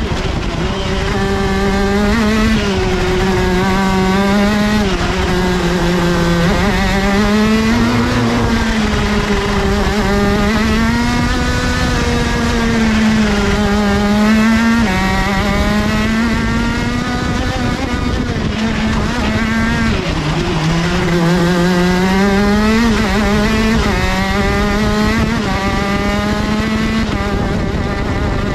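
IAME SSE 175cc two-stroke kart engine, unrestricted on a 30 mm Dellorto carburettor, running hard on track, its pitch rising and falling again and again as the kart accelerates and slows through the corners. It runs butter smooth.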